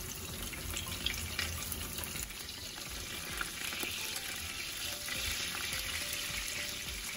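White leg prawns frying in hot oil in a nonstick pan, a steady sizzle, with a few light taps as wooden chopsticks turn them.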